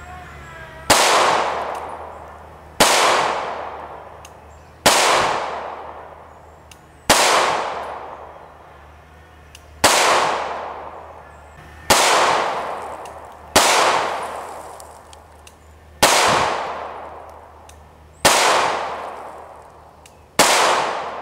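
A TriStar T-100 9mm pistol fired ten times, one shot about every two seconds, with HPR Black Ops frangible 9mm rounds. Each shot is a sharp crack followed by a long fading ring-out.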